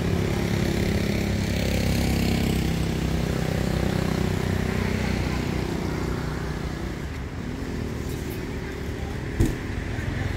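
Motor vehicle engine running steadily, easing off a little after the middle, with a single sharp click about a second before the end.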